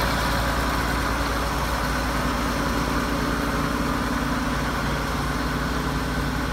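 1972 Allis-Chalmers 220 tractor's turbocharged six-cylinder diesel running steadily at low speed as the tractor pulls away, growing slightly fainter.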